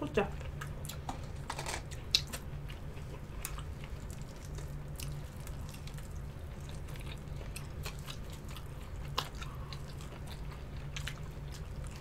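Two people biting into and chewing breaded wings: wet chewing with scattered crunches, a few of them sharper and louder. A steady low hum runs underneath.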